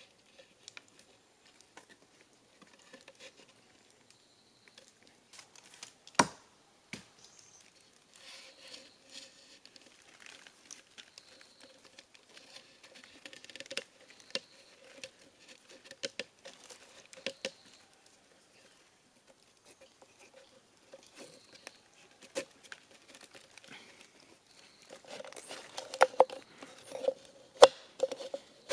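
Handling sounds of a bamboo-tube trap and its cord: soft rustling with scattered light clicks and taps. There is one sharp knock about six seconds in, and a flurry of wooden clicks near the end as thin bamboo slats are fitted into the tube.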